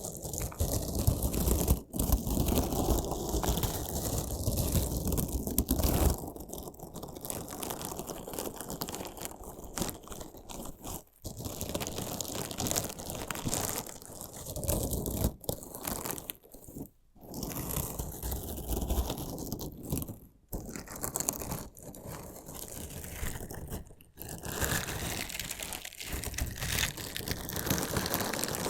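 Crunchy slime being cut and pressed close to a binaural microphone: a dense, continuous crunching and crackling, broken a few times by very short gaps.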